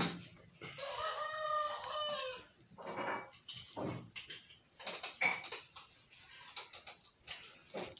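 A rooster crows once, a call about a second and a half long starting just under a second in. Light clinks and knocks of a pot being handled follow.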